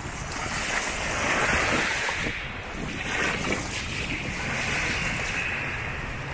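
Surf washing onto the shore, swelling in a few surges, with wind buffeting the microphone.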